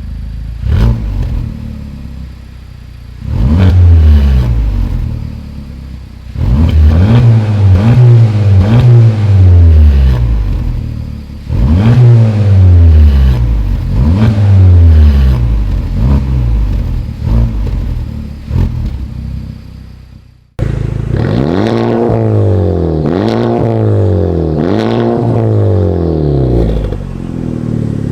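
Honda Civic Type R's turbocharged 2.0-litre four-cylinder through its exhaust, revved over and over in quick blips, each climbing in pitch and then falling back. About two-thirds in there is a sudden cut to another recording of the same kind of rev blips.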